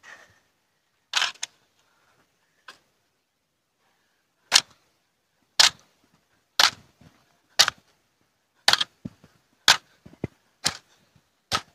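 A garden hoe chopping into soft soil as a bed is tilled. One stroke comes near the start, then a steady run of strokes about once a second from about four seconds in.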